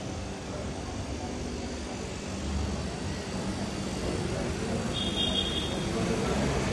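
A motor vehicle's engine running with a steady low hum that grows louder from about halfway through. A short high-pitched tone sounds about five seconds in.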